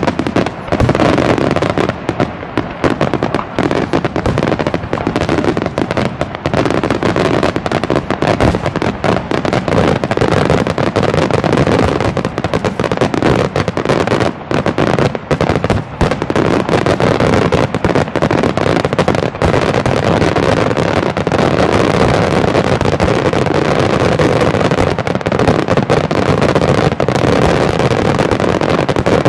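Aerial firework shells bursting in rapid, unbroken succession: a dense, continuous run of bangs with no pause.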